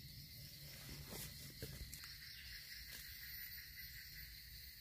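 Steady chorus of insects droning at several high pitches. A few faint rustles and light clicks come about a second in and again near three seconds.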